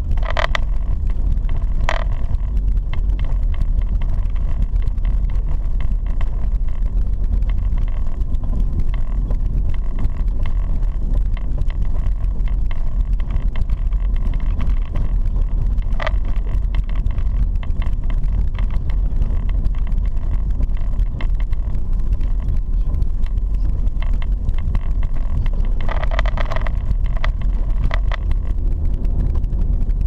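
Car driving on a dirt road, heard from inside the cabin: a steady low rumble of tyres and engine.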